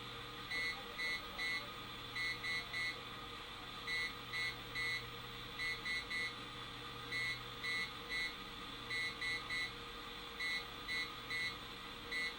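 Short pitched beeps from a small AM radio's speaker in repeated groups of three, about one group every second and a half, over steady static and hum. The beeps are interference from a negative ion generator discharging into water, keyed on and off by hand as Morse code.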